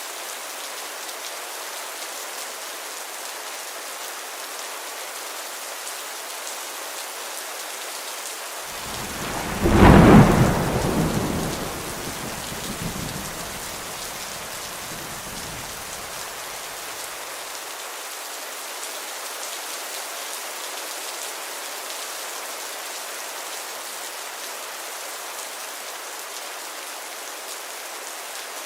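Steady heavy rain hissing throughout. A single thunderclap breaks in about nine seconds in, sharp at first, then rumbling and fading over several seconds.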